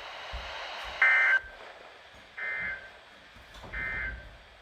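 Three short bursts of NOAA Weather Radio SAME digital data tones, the end-of-message code that closes an emergency alert broadcast. The first comes about a second in and is the loudest; two quieter ones follow about 1.4 s apart, over faint radio hiss.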